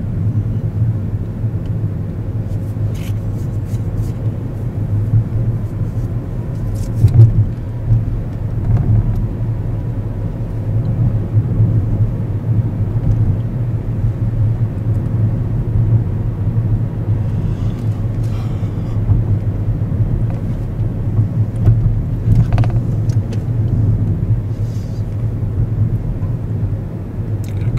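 A car driving at a steady speed, heard from inside the cabin: a continuous low road-and-engine rumble with a few faint short ticks.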